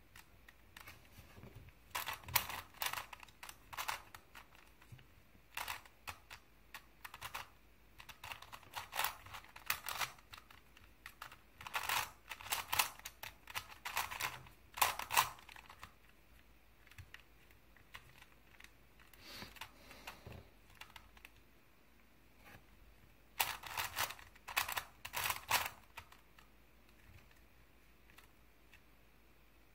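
Plastic Crazy 3x3 Plus Mars twisty-puzzle cube being turned by hand: quick runs of clicks as the layers snap round, broken by short pauses.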